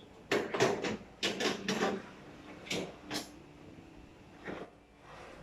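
A metal toaster-oven rack knocking and clattering as it is handled and fitted into the oven: a quick run of knocks in the first three seconds or so, then one more near the end.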